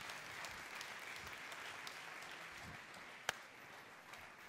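Audience applauding, slowly dying down, with one sharp knock about three seconds in.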